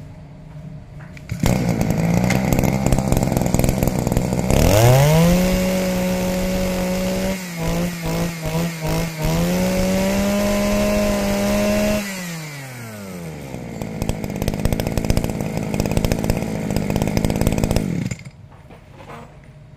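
Robin NB2200 brush-cutter engine, a small two-stroke, starts and idles. It is then revved up to a high steady speed, with a few quick throttle dips in the middle, drops back to idle, and is shut off a little before the end.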